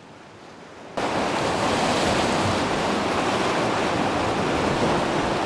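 Steady rush of wind and choppy lake waves against a rocky pier. It cuts in suddenly about a second in, after a quieter moment.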